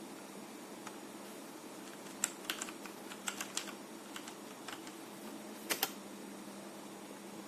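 DareU EK87 V2 mechanical keyboard keys being pressed: a run of short, uneven keystrokes starting about two seconds in, then two sharp strikes close together a little later, over a faint steady hum.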